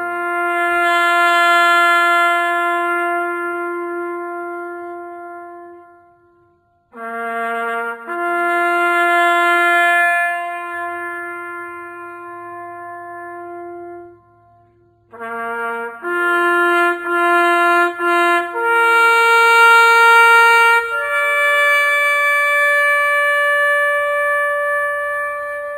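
Solo bugle call played on a brass horn, slow and ringing, in three phrases. Each opens with a short low-to-high leap. The first two settle on a long middle note that dies away. The third, after a run of quick repeated notes, climbs to two long higher notes, the last held and fading near the end.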